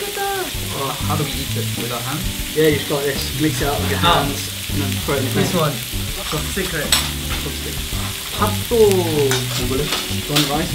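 Slices of pork belly sizzling on a hot Korean barbecue grill pan, a steady frying hiss, with people talking over it.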